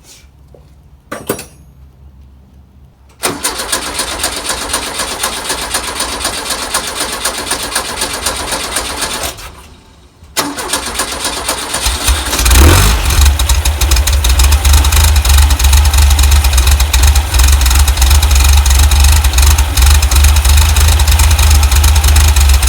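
Air-cooled VW flat-four engine being started with the key: a short click, then the starter cranks for about six seconds without the engine catching and stops. A second try cranks again, and about twelve seconds in the engine fires and settles into running with a strong low rumble.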